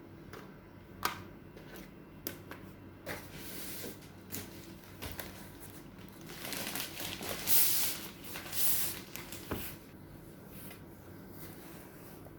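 Packaging and keyboard being handled, picked up through a phone microphone: scattered knocks and clicks, then louder rustling and crinkling from about six to nine and a half seconds in.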